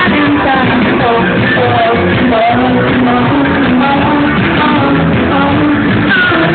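Live rock band playing, with electric guitars, drums and a lead singer carrying a sliding vocal melody, heard loud from within the crowd.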